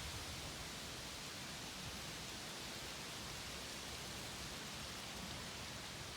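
Wind blowing through autumn trees, rustling the leaves in a steady, even hiss.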